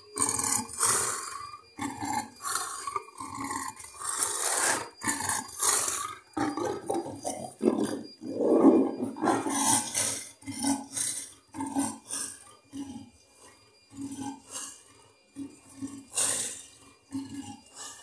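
Leopard growling and snarling in a run of short, repeated bursts, loudest through the middle and coming in shorter, quieter bursts toward the end.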